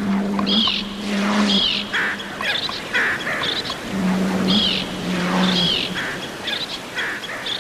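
Underwater recording of marine animals calling. A low steady hum of about a second and a half comes twice, with repeated high chirping calls that sweep downward over it.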